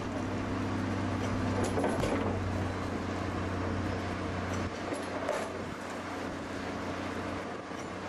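Heavy slag-handling machine's engine running steadily with a low hum, with a couple of faint knocks. The hum drops a little about two-thirds of the way through.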